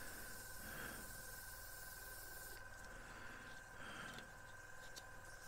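Faint hiss of a Gaahleri Mobius airbrush spraying paint at about 15 psi, stopping about halfway through.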